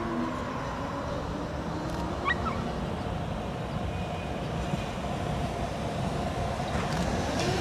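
Steady outdoor street rumble; near the end a Brno tram's electric traction motor whine starts to rise as the tram comes up.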